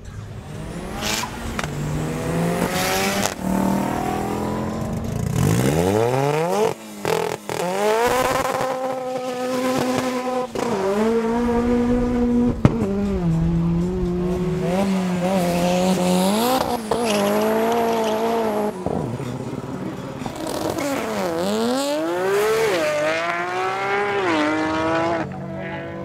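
Drag-racing car engine revving hard and accelerating, its pitch climbing and then dropping sharply several times.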